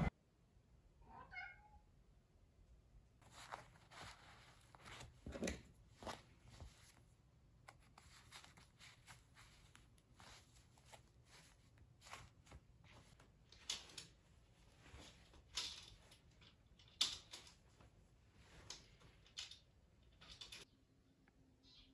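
A domestic cat gives one short meow about a second in, then faint irregular clicking and rustling as plastic curtain hooks are pushed into curtain fabric and hung on the rail runners.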